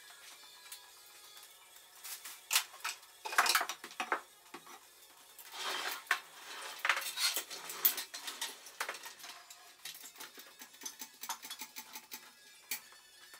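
Metal parts clinking and clattering as they are handled, in irregular knocks and rattles, with the loudest knocks about two and a half to four seconds in and again around six to seven seconds in.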